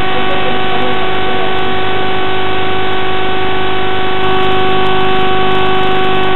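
Loud steady hiss with several sustained humming tones layered in, an unbroken drone.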